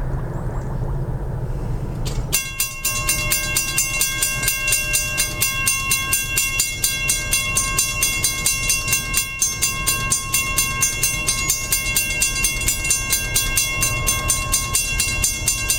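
Railroad grade-crossing bell starts ringing suddenly about two seconds in, a rapid ringing of about three to four strikes a second, over the low rumble of an approaching CSX freight train's diesel locomotives.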